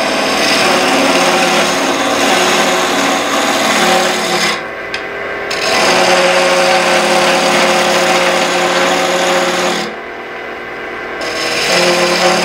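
Small wood lathe running while a hand gouge cuts a spinning wooden mallet-handle blank: a steady hum under a continuous rough scraping of the cut. The scraping drops away twice, about 5 seconds in and again near 10 seconds, while the lathe keeps turning.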